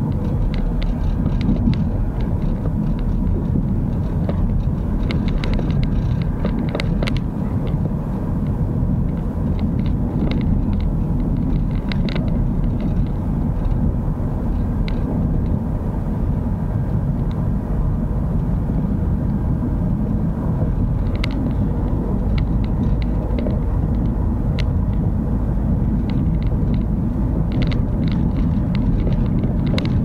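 Steady low rumble of a vehicle on the move, road and engine noise picked up by an action camera, with scattered light clicks and rattles.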